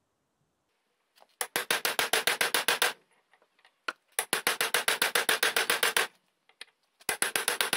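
Hammer striking a steel punch set in the eye of a hatchet head clamped in a bench vise, metal on metal, driving out the old handle. Three quick runs of evenly spaced ringing blows, about eight a second, with short pauses between.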